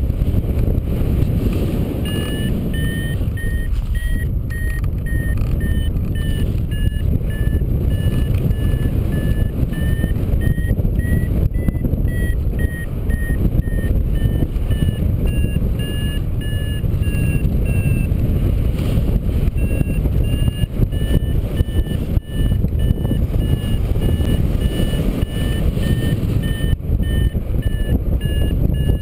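Paragliding variometer beeping in quick short tones that drift slightly up and down in pitch, the signal that the wing is climbing, over loud wind rushing on the microphone. The beeping starts about two seconds in and stops briefly around the middle.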